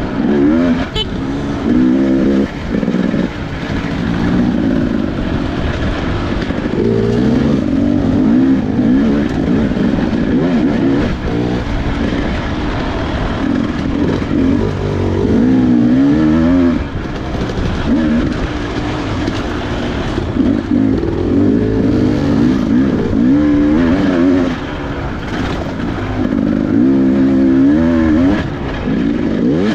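Dirt bike engine heard on board at race pace. Its pitch climbs and drops again and again as the throttle is opened and shut through the turns of a tight trail.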